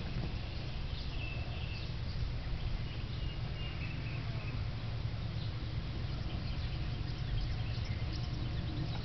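Outdoor ambience: a steady low rumble, with a few faint high chirps in the first few seconds and scattered faint ticks.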